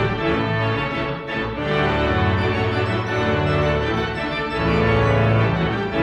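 Instrumental music with held chords that change every second or so.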